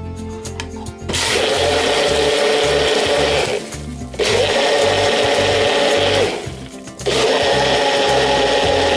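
Personal blender's motor whirring in three pulses of two to three seconds each, blending a watery mixture in its cup. The first pulse starts about a second in, with short pauses between them.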